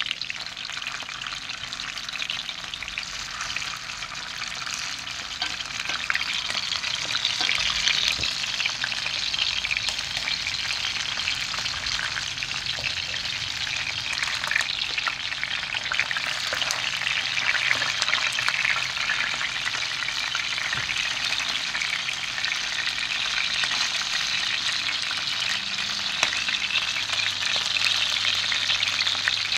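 Whole mullet frying in hot oil in a pan: a steady, dense crackling sizzle that grows a little louder a few seconds in.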